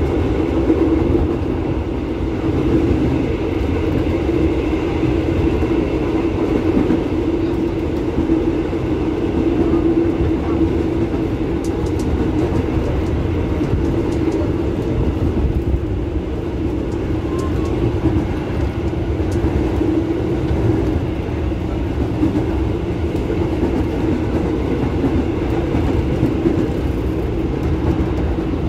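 Electric commuter train heard from inside the carriage, running steadily at speed: a constant hum and rumble from the wheels and traction motors.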